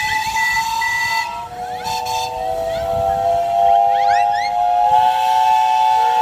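Traction engine steam whistle blowing long and steady, with several pitches sounding together at once over a hiss of steam.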